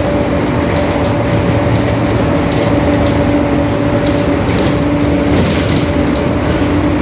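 Mercedes-Benz OF-1721 Bluetec 5 city bus under way at a steady pace: diesel and driveline running, with a steady two-note whine from the rear differential, which is growling. Light ticks and rattles come through now and then.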